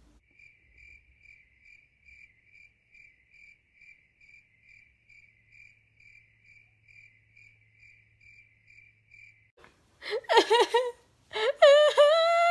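Cricket chirping steadily, a single high chirp about two and a half times a second, which stops abruptly. About ten seconds in, a much louder voice breaks in with drawn-out, wavering notes.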